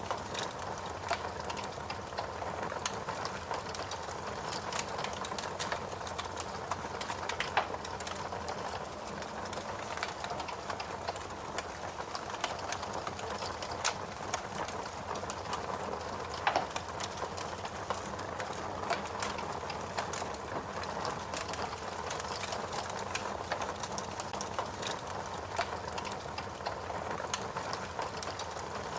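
Wood fire crackling steadily, with dense small pops and a few louder snaps, one about seven seconds in and another about halfway.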